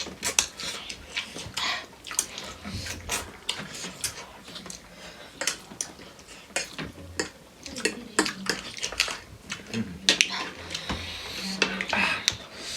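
Utensils clinking and scraping irregularly against plates and bowls as people eat.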